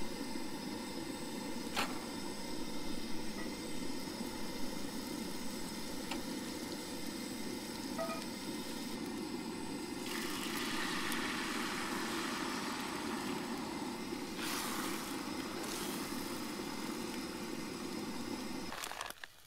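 Coleman propane camp stove burner running with a steady low roar. About ten seconds in, eggs poured into the hot cast-iron skillet sizzle for a few seconds.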